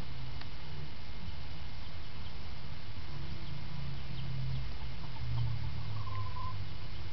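Chickens: a few faint high peeps and a short soft chirp about six seconds in, over a steady low rumble.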